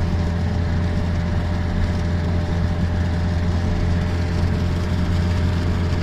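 Steady low drone of engine and tyre noise from a vehicle travelling at motorway speed, heard from inside the cabin.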